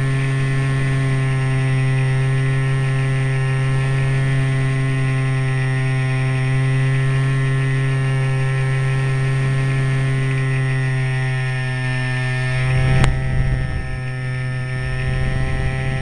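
Remote-control plane in flight heard from its onboard camera: a loud, steady buzz at one fixed pitch with many overtones. About thirteen seconds in there is a sharp click, followed by low rumbling wind noise.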